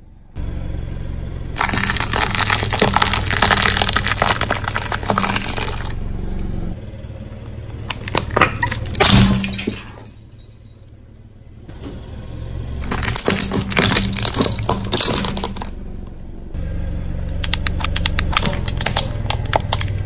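A car's tyre rolling over and crushing brittle objects, with dense crunching and cracking in several long stretches over the low rumble of the car.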